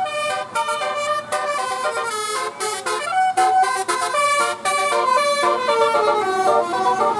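Bus telolet horn, a multi-tone air horn, playing a fast tune of short stepped notes with brief breaks between phrases.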